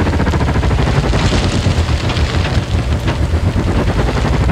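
Background music with a heavy bass and a fast, steady beat.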